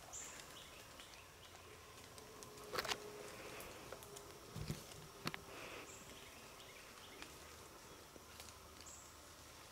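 Quiet woodland with an insect buzzing faintly twice. A few short high chirps, some sharp soft ticks and one low knock come through as well.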